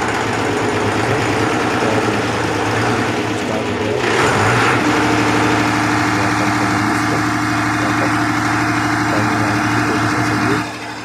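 Kirloskar diesel generator engine running just after start-up, its Bosch inline injection pump freshly refitted and timed and the injector lines bled of air. It starts readily and the running steadies about four to five seconds in. The level drops near the end.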